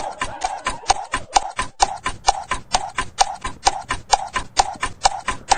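Rapid, evenly spaced clicks or taps, about five a second.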